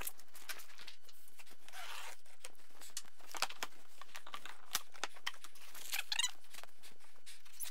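A large cardboard shipping box being handled and opened: cardboard rustling and scraping with scattered knocks, then a short crackle of plastic wrapping about six seconds in.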